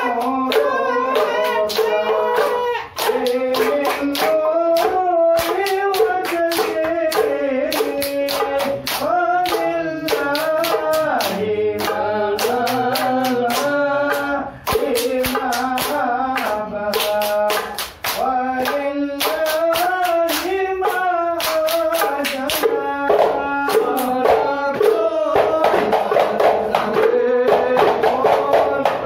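Male voices chanting a sholawat melody in unison in the Hadrah Ishari style, over a steady beat of sharp hand claps about twice a second. Near the end the beat grows denser and louder.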